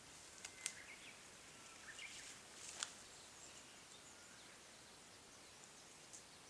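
Faint forest quiet with a few sharp snaps of dry twigs and brush under a hiker's footsteps as he walks away, the loudest about a second in and again near three seconds, with a few faint high chirps.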